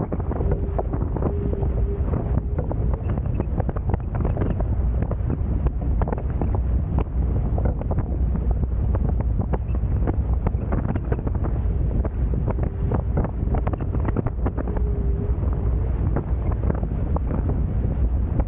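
Wind buffeting the microphone of an on-board camera on a Hobie Tiger F18 catamaran under sail, with water rushing and splashing against the hulls. A faint steady hum comes and goes.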